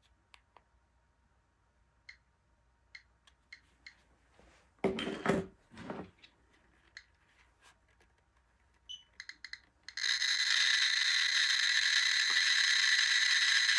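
A radiation detector ticking sparsely, a brief scraping rustle of handling about five seconds in, then a few clicks just before ten seconds that merge into a dense, continuous crackle: the GQ GMC-600 Plus Geiger counter clicking at thousands of counts a minute as it picks up an americium-241 smoke-detector source.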